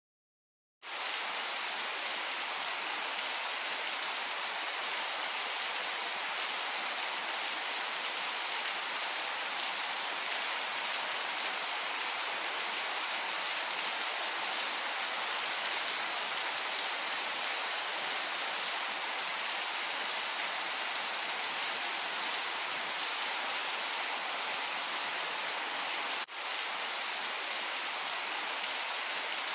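Steady rain, a dense even hiss that starts suddenly about a second in, with a momentary drop in level near the end.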